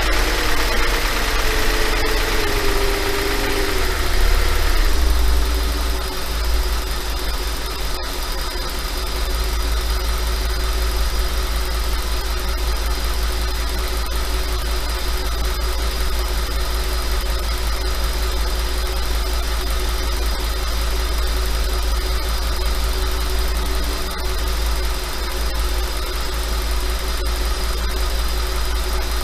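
5.2 FSI V10 engine idling with a light rattle. Its revs ease down from a slightly raised speed over the first few seconds, then hold steady. The owner asks whether the rattle is still normal or piston slap.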